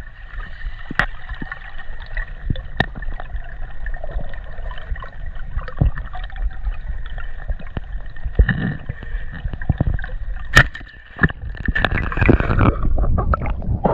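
Gurgling, churning water with scattered sharp clicks and knocks, as heard by a camera underwater during a spearfishing dive. A thin steady whine runs under it, slides down and fades near the end.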